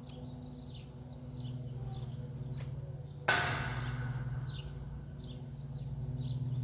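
Small birds chirping over a steady low hum, with a single sharp bang about three seconds in that rings briefly.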